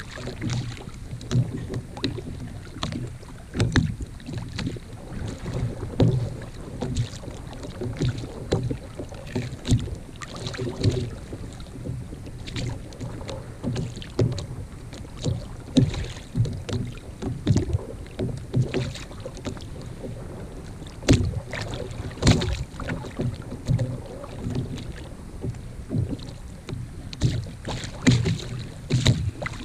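Small waves slapping and sloshing against the plastic hull of a sit-on-top kayak in irregular low thumps, with wind on the microphone and a few sharp knocks on the hull, the loudest two about three quarters of the way through.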